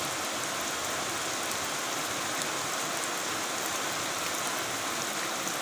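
Heavy rain falling steadily on a concrete yard and open ground, an even hiss flecked with faint sharper drop ticks.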